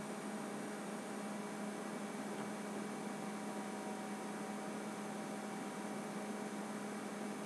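Steady low electrical hum with faint overtones over a constant hiss: the noise floor of the recording, with no other sound.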